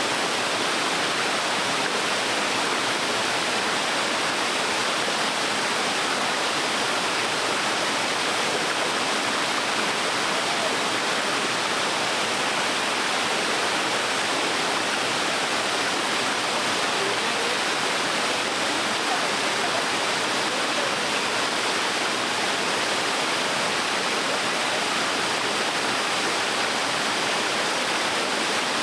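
Small waterfall splashing steadily into a stream: an even, unbroken rush of falling water.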